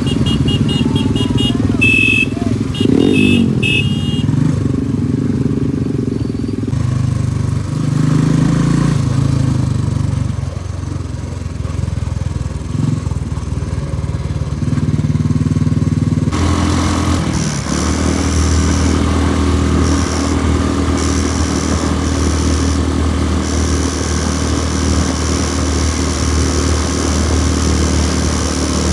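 Motorcycle engine running on the move, its pitch rising and falling with changes of speed, with a few short high beeps in the first few seconds. About sixteen seconds in, the sound changes abruptly to a steadier engine note.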